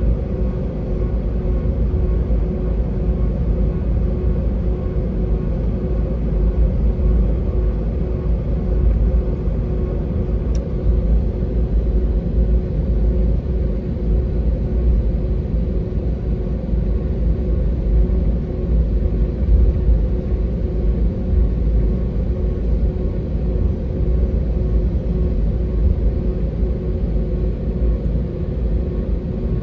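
Steady engine rumble and hum of an Airbus A320-family airliner heard inside the passenger cabin while it taxis, holding an even level with no spool-up.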